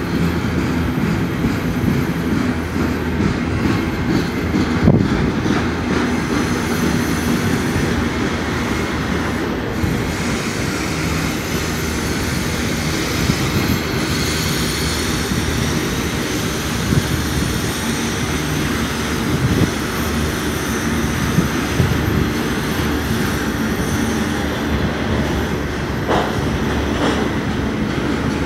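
Double-stack container train's well cars rolling past, a steady rumble of steel wheels on rail with clattering couplings and a few sharper knocks.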